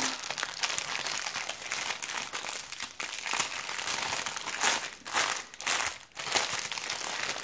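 Clear plastic packaging and a foil-wrapped bundle of diamond-painting drill bags being unwrapped by hand, crinkling continuously, with two short breaks about five and six seconds in.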